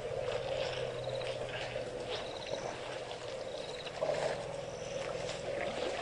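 Waterhole ambience: short high chirping calls and faint ticks over a steady background, with a low drone that comes in twice and fades after a couple of seconds each time.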